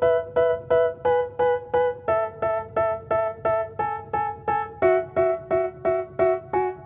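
Background music: a keyboard playing the same chord over and over, nearly three strikes a second, the chord changing every two to three seconds.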